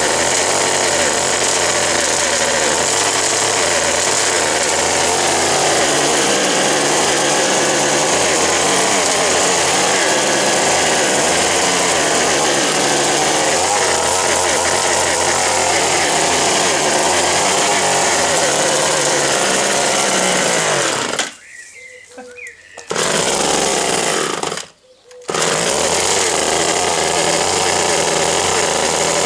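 1958 Little Wonder hedge trimmer with its O&R 1 hp two-stroke engine, running steadily under cutting load. The sound cuts out abruptly twice, for a second or two, about three quarters of the way through, and comes straight back each time.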